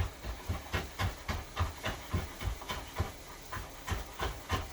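A kitchen knife chopping fresh ginger on a cutting board: a quick, uneven run of knocks, about three to four a second.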